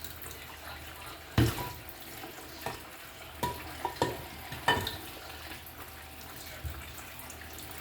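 Plates and utensils knocking and clinking in a sink as a toddler washes dishes: about half a dozen sharp clatters, some with a brief ring, over a steady faint hiss of running water.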